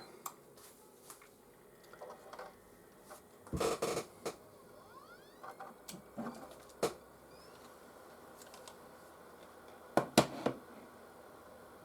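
Scattered clicks, knocks and rustles of hands handling a PlayStation 4 console and its cables while setting it up for a test, with louder clatters about three and a half seconds in and near the end.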